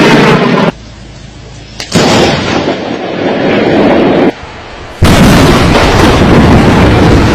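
Lightning strikes with loud thunder cracks and rumbles: one ends under a second in, another starts about two seconds in and lasts some two seconds, and a third starts suddenly about five seconds in and carries on.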